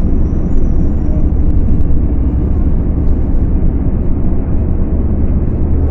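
Scania K250UB city bus's five-cylinder diesel engine running under way, a steady low drone with no change in pitch.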